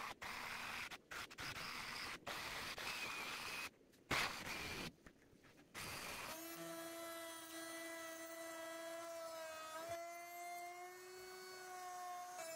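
A Milwaukee M18 Fuel cordless jigsaw cutting through a glued-up 2x6 pine panel, in short stretches broken by brief gaps. About six seconds in it gives way to a router spinning in a router table with a steady high whine, its pitch shifting slightly as the bit cuts.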